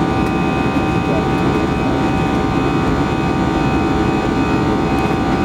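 Airbus A320 cabin noise during the climb after takeoff: the steady drone of the turbofan engines and rushing air heard from inside the cabin, with a few steady whining tones from the engines above it.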